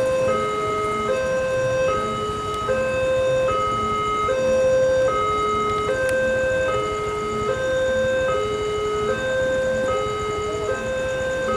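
Railway level crossing's electronic warning alarm sounding continuously, a high-low two-tone pattern that switches pitch about every 0.8 seconds.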